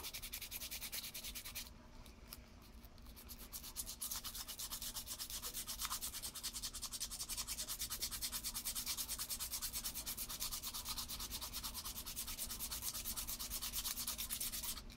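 Sandpaper rubbed by hand over a handcarved briar pipe in quick, even back-and-forth strokes, with a short pause about two seconds in.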